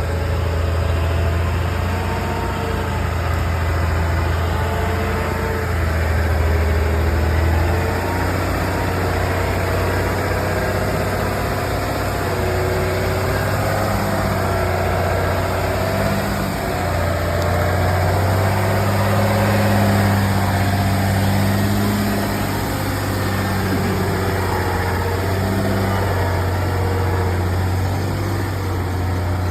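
Heavy logging truck engine running steadily with a deep hum, its pitch shifting slightly as it labours.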